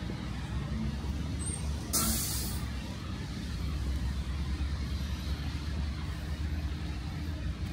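Traffic on a wet city street: a steady low rumble of heavy vehicles, with a short, sharp hiss about two seconds in.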